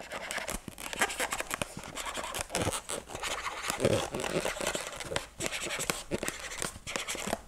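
Marker pen scratching on an inflated latex balloon while drawing spots on it, a run of short, irregular strokes.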